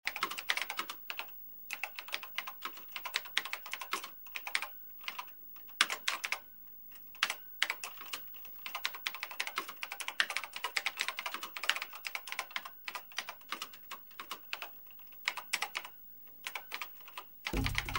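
Typing on a keyboard: rapid, irregular key clicks in runs, with short pauses between the runs.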